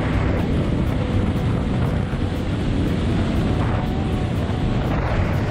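Arctic Cat snowmobile running at about 60–70 mph on a groomed trail, a steady engine-and-track rumble with wind noise on the microphone.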